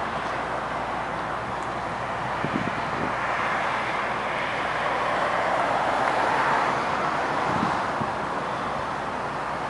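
Outdoor traffic noise: a passing vehicle, its steady rush building to a peak partway through and then fading.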